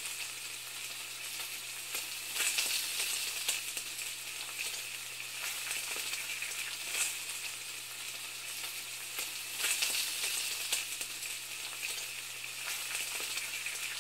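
Food frying in a hot pan: a steady sizzle with crackles, swelling louder a few times.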